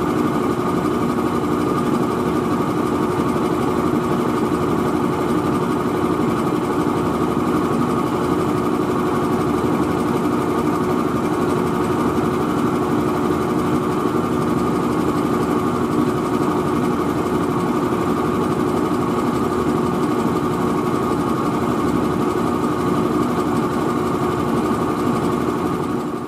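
Engine of an all-terrain vehicle idling steadily, with a constant whine over its running note.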